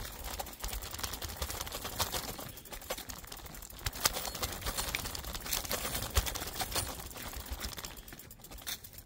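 Mountain bike riding fast over a dirt singletrack: knobby tyres crunching over dry leaves and the bike rattling over bumps, with many sharp knocks. It quietens near the end.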